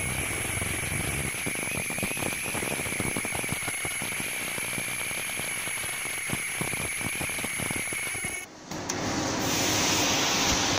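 Ultrasonic fabric slitting machine running: a steady high whine over a dense, rapid rattle of clicks. About eight seconds in the sound drops out for a moment and comes back as a broader, hissier running noise without the whine.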